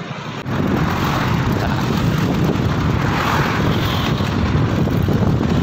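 Wind buffeting a phone microphone beside a highway, mixed with road traffic noise. It jumps up about half a second in, then stays steady and loud.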